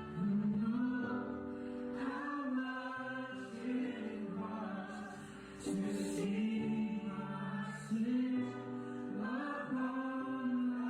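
A group of voices singing a slow worship song in long held notes over sustained low accompanying notes.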